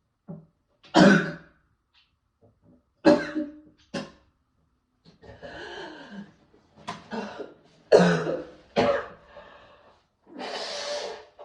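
A person coughing several times, with a few seconds between the loudest coughs.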